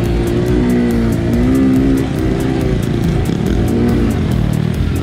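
Honda Grom motorcycles' small single-cylinder engines running and revving, under background music with a steady beat.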